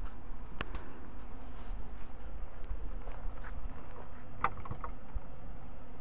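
Carniolan honey bees buzzing steadily as they fly around the hive entrance and a sugar-syrup feeder, with a few brief louder sounds, the strongest about four and a half seconds in.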